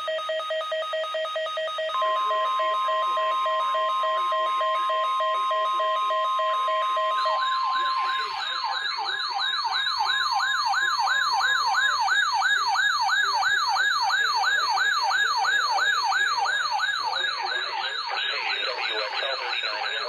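NOAA Weather Radio's weekly-test warning alarm tone: a steady, single pitch held for about ten seconds, laid over a rapid beeping tone. About seven seconds in, a weather-radio receiver's alert siren starts, warbling up and down about two to three times a second. The siren stops near the end.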